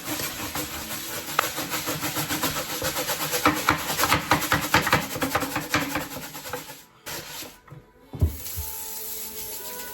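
A dish being rubbed clean by hand, in quick repeated rubbing strokes that stop after about six seconds, followed by a single thump.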